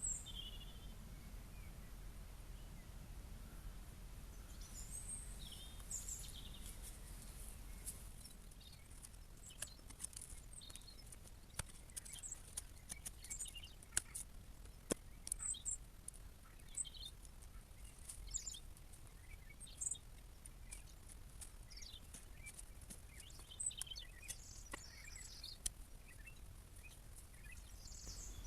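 Bonfire of old decking and branches burning, with a low rumble and scattered sharp pops and crackles, thickest in the middle stretch. Birds chirp now and then.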